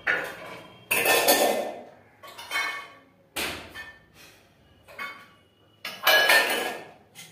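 Irregular clattering knocks, about seven in all, each sudden and dying away quickly, as of hard household objects being knocked or set down.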